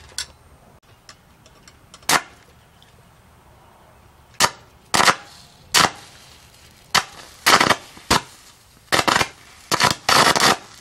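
A string of sharp cracks, single and spaced out at first, then coming quicker and closer together in the second half.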